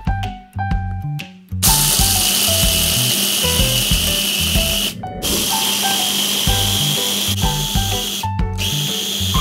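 KitchenAid mini food processor motor running, its blade grinding whole peanuts: a steady whirring noise with a high whine. It starts about a second and a half in and breaks off briefly twice.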